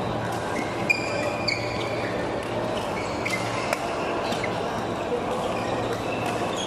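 Badminton rally: several sharp cracks of rackets hitting the shuttlecock, mixed with short high squeaks of shoes on the court mats, over the steady background noise of a busy hall.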